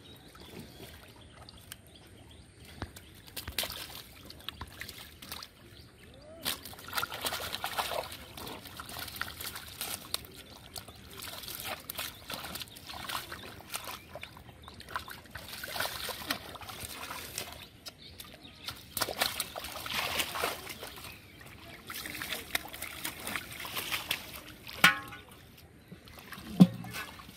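Hands splashing and sloshing in shallow muddy water while grabbing a catfish, with irregular bursts of splashing. Near the end, two sharp knocks as the fish goes into a metal pot.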